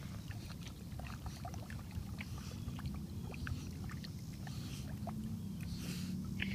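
Light, irregular splashing and dripping of shallow water as a dog wades and paws at it, over a steady low rumble.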